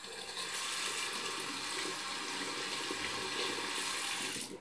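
Tap water running into a sink over a makeup sponge held under the stream, a steady hiss that starts abruptly and stops about four and a half seconds in.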